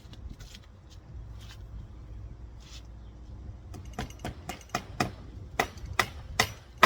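Faint background, then from about four seconds in a run of sharp knocks, two to three a second, growing louder toward the end.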